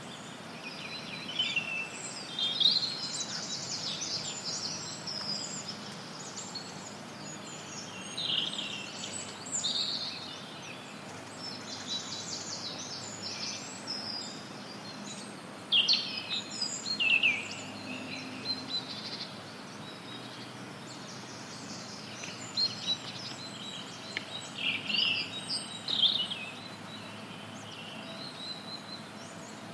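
Several forest songbirds chirping and trilling in short, overlapping phrases, over a steady hiss of background noise.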